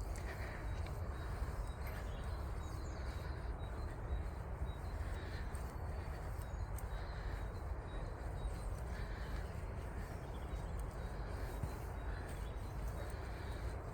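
Quiet outdoor ambience on a muddy woodland walk: a steady low rumble, with faint soft sounds every second or two.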